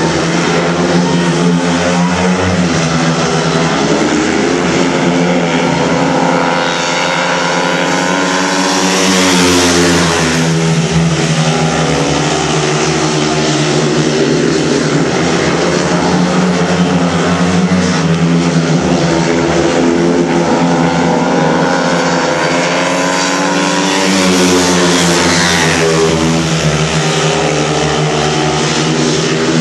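Four speedway motorcycles racing around the oval, their 500 cc single-cylinder engines droning and rising and falling in pitch through the bends. The sound swells twice, about a third of the way in and again near the end, as the pack passes close.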